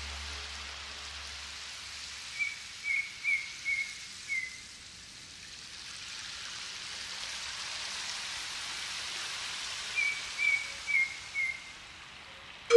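Nature ambience: a steady wash of rain that swells and fades, with a bird calling a quick run of five short chirps, then four more near the end.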